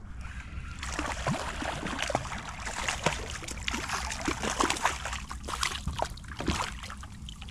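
A small hooked fish thrashing and splashing at the water's surface beside a kayak as it is reeled in, a fast irregular run of splashes that starts about a second in and dies down near the end.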